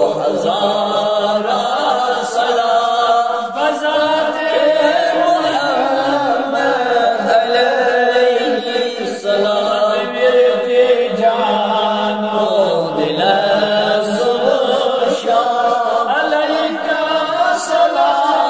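A man's voice chanting a darood, a melodic Islamic salutation on the Prophet, sung in long, wavering phrases without a break.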